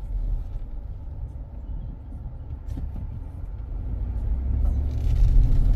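Car road noise heard from inside the cabin while driving: a steady low rumble of engine and tyres that grows louder near the end.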